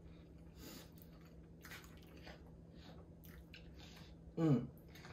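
Quiet eating sounds at a table: chewing and small scattered clicks of a fork and plastic food container, over a steady low hum. About four and a half seconds in, a short vocal sound falling in pitch.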